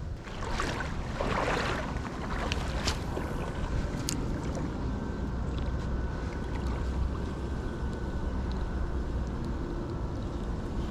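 Steady outdoor noise of wind buffeting the microphone over moving creek water, with a rushing swell about half a second in and a few sharp clicks between two and four seconds in.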